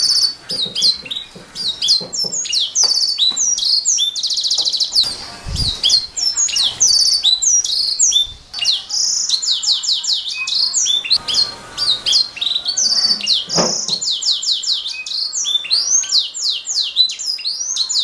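Domestic canary singing a long unbroken song of rapid repeated high notes and fast rattling trills, changing phrase every second or so. A couple of short low thumps come through about a third and three quarters of the way in.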